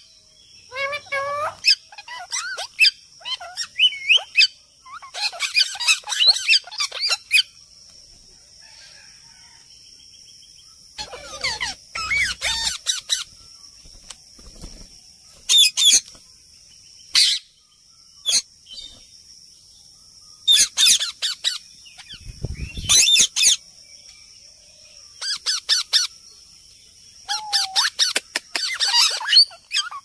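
Several birds calling and chirping in irregular bursts, some calls sliding up and down in pitch, with short pauses between the bursts. A faint steady high tone runs underneath.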